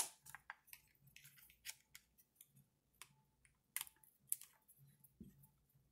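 Faint, scattered clicks and light scrapes of small hand tools and hard plastic parts being handled on an RC truck's front end. The sharpest click comes right at the start, two more come close together around four seconds in, and a soft low thump comes about five seconds in.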